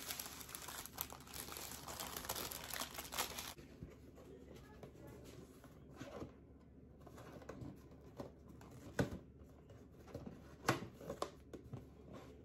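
Paper wrapper crinkling and rustling as it is unfolded from a croissant, for about three and a half seconds. Then a cardboard pastry box is handled, with light scraping and a few small knocks.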